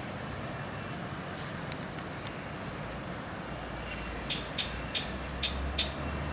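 Two short, thin, very high bird calls, about two and a half and six seconds in. Between them comes a quick run of five sharp ticks, all over a steady low traffic hum.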